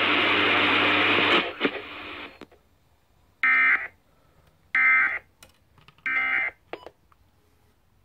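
An FM radio receives the end of an Emergency Alert System Required Monthly Test. The station's audio stops about a second and a half in. Then three short, identical buzzy data bursts sound through the radio's speaker, about a second and a half apart: the EAS end-of-message code that closes the alert.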